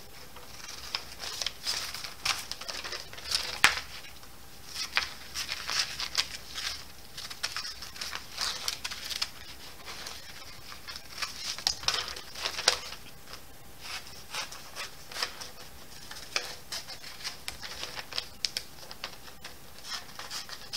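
Scissors snipping through paper-backed fusible web, with the paper rustling and crinkling as it is turned: short, irregular snips throughout.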